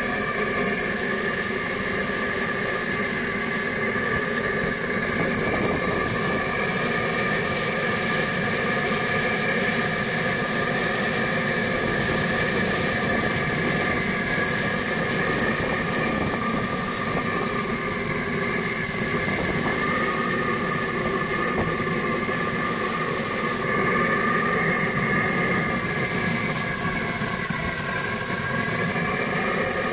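1949 Bolinder-Munktell BM20 tractor engine running steadily under a strong hiss, its pitch dipping slightly near the end.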